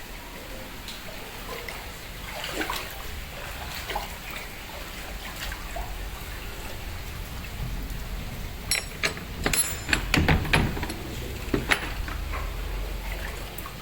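Floodwater sloshing and trickling through the flooded ground floor of a house. There is a cluster of several sharp, louder strokes about two-thirds of the way through.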